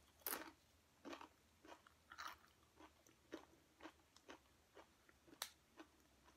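Faint close-up chewing with crisp crunches, about two chews a second, as food is eaten.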